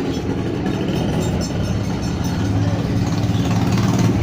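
Hot-air rework station blowing steadily, a continuous low drone with some hiss, as it heats a phone's charging-pin connector to desolder it from the motherboard.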